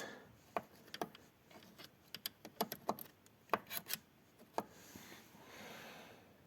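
An irregular string of sharp clicks and light knocks, about a dozen over four seconds, from handling a car door hinge as Litol grease is worked into it. Near the end there is a soft hiss of breath.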